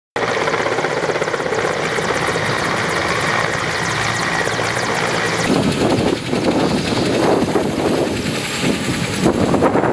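Helicopter running loudly, its rotor giving a fast steady chop with a high steady whine over it; the sound changes abruptly about halfway through, becoming rougher and more uneven.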